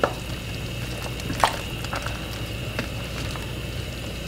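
Wooden spatula stirring vegetables in a pot of simmering broth, with a few short knocks against the pot, over a steady low hum.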